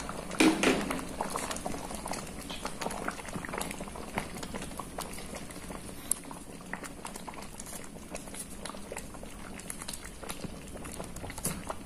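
Thick, sugary mango chutney bubbling in a pan, with many small irregular pops, while a wooden spatula stirs through it.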